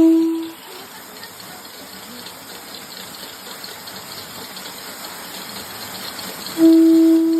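Steady rush of waterfall water. A clear held tone sounds at the very start and fades within half a second, and another held tone starts about six and a half seconds in.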